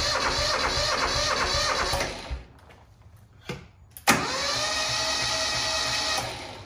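Electric starter on a Yanmar 155D diesel tractor cranking the engine in two bursts of about two seconds each, with a steady whine. The starter turns fine here, with no grinding, while it is being checked for an intermittent grinding fault.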